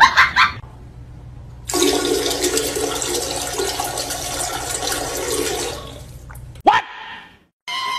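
Toilet flushing: a rush of water that starts about two seconds in, runs for about four seconds and then fades away. A single sharp click follows near the end.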